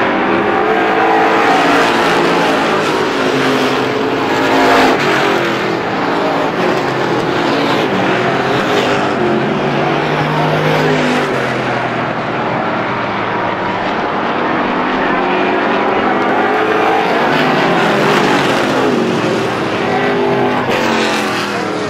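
Several Strictly Stock race cars running at speed on an oval track, their engine notes overlapping and rising and falling as they pass.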